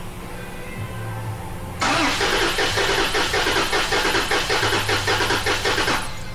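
Toyota 2GR-FKS 3.5-litre V6 cranking on the starter with the fuel cut (EFI main fuse pulled), so it turns over without firing. The cranking goes with fast, even pulsing for about four seconds, starting about two seconds in and stopping abruptly. This is a compression test on cylinder 3, which reads about 190 psi: good compression.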